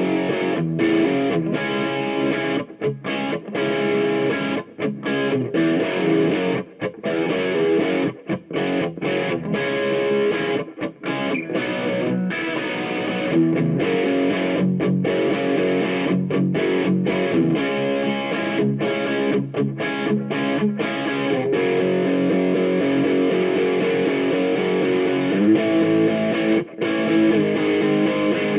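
Background music led by distorted electric guitar.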